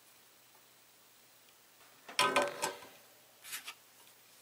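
Two short clatters of tools or objects being handled and set down at a workbench, the first and louder about two seconds in with a brief ringing, the second about a second later.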